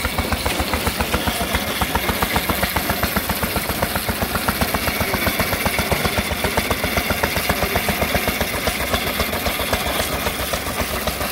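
Single-cylinder stationary engine running and chain-driving a flywheel jaw rock crusher, making a fast, even rhythm of knocks.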